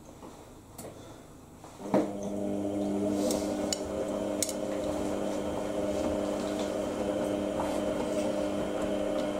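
IKEA RENLIG IWM60 washing machine in its wash phase: after a quiet pause, a thump about two seconds in as the drum motor starts, then a steady motor hum with several pitched tones as the drum turns, with a few light clicks from the load.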